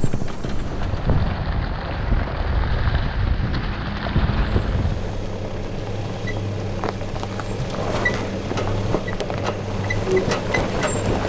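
Nissan Frontier Pro-4X pickup driving slowly off-road: a steady low engine hum with tyres rumbling and crunching over dirt and rocks, and scattered small clicks and knocks in the second half.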